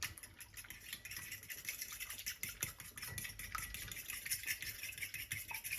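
Egg mixture being beaten briskly in a bowl: a quick, steady run of light clicks and scrapes as the utensil strikes and scrapes the bottom of the bowl.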